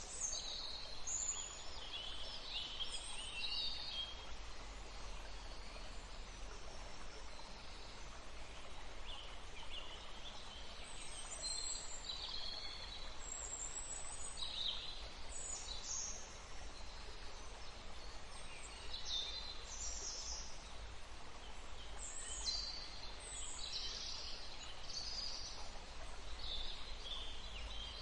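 Small songbirds chirping and twittering in short high-pitched calls, several overlapping at times, over a steady hiss and a low rumble.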